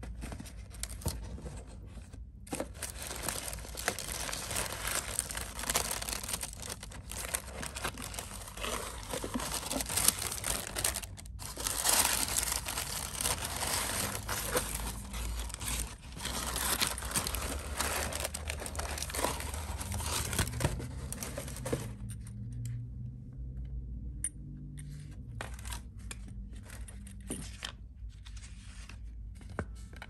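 Tissue paper rustling and crinkling as it is unfolded and pulled off a pair of leather sandals in their shoebox. The rustling stops about three-quarters of the way through, leaving only a few light paper rustles and taps.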